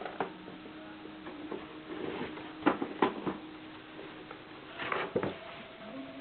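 Sharp plastic clicks and knocks from a small toy turntable being handled, twice in quick succession near the middle and again in a short cluster near the end, over a faint steady hum.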